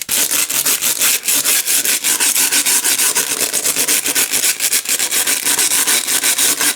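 A wire brush scrubbed hard and fast back and forth over a motherboard's solder side, a rapid even scraping of about seven strokes a second, cleaning the connector pins and solder joints before desoldering.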